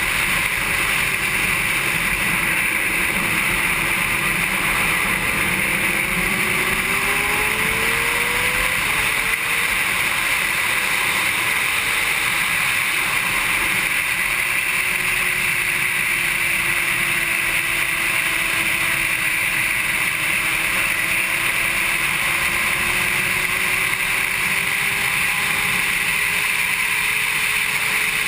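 Constant wind rush past a GoPro at track speed on a Honda CBR600RR, with the bike's inline-four engine faintly audible beneath it. The engine note climbs repeatedly through gears in the first several seconds, then rises and falls slowly.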